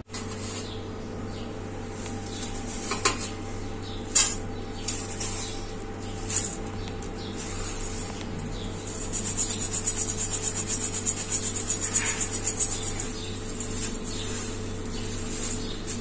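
Dry thin poha (flattened rice flakes) being shaken in a perforated steel sieve over a steel plate. Past halfway there is a quick rustling rattle of flakes on metal lasting several seconds, and earlier a few light clinks of the steel vessels. A steady low hum runs underneath.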